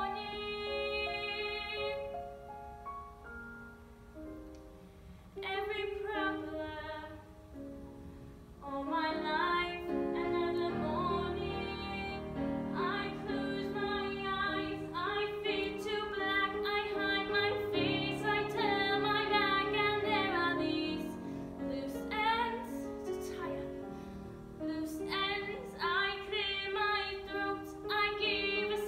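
Female solo voice singing a musical-theatre song over instrumental accompaniment. A held note with vibrato at the start gives way to a quieter accompaniment-only passage, and the singing comes back about eight and a half seconds in and carries on in long phrases.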